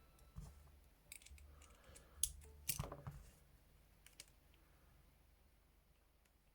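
Faint small metal clicks of a pick working inside a Chicago 1200 hinged handcuff, picking off the double lock on its second side. The clicks are scattered, most in the first three seconds, with one more about four seconds in.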